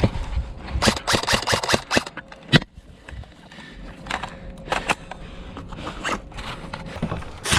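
Airsoft guns firing: short rapid bursts of sharp clicking shots, the longest about a second in, with a single shot and a few scattered ones in between.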